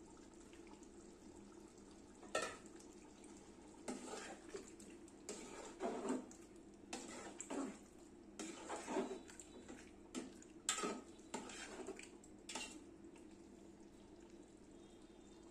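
Metal spatula stirring meat and potatoes in an aluminium pot, scraping and clinking against the pot in irregular strokes. The strokes begin about two seconds in and stop near the end, over a faint steady hum.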